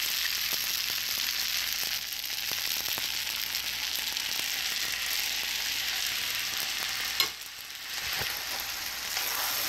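Fried rice sizzling in a hot nonstick wok as brown sauce is poured in and stirred, with a steady frying hiss and faint spatula ticks against the pan. There is one sharp click about seven seconds in.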